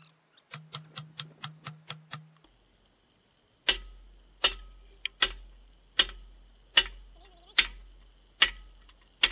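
Hammer blows on steel at an excavator's boom cylinder. First comes a quick run of lighter taps, then after a short pause heavy sledgehammer strikes about every 0.8 seconds, each with a metallic ring, on a steel bar held against the cylinder mounting.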